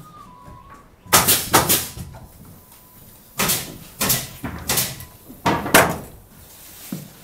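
A run of about eight knocks and thumps on wood, coming in three uneven groups.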